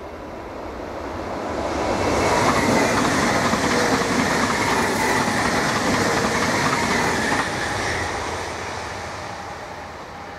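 NS Sprinter electric train running past at speed. The rush of wheels on rail builds over the first two seconds, stays loud with a rapid clatter of wheels over the rails, and fades away from about eight seconds in.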